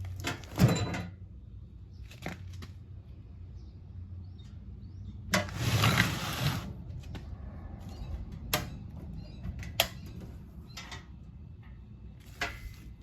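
Handling noises while a pellet grill is being taken apart: scattered clicks and knocks of parts being moved, with a longer scraping rustle about five seconds in, over a low steady hum.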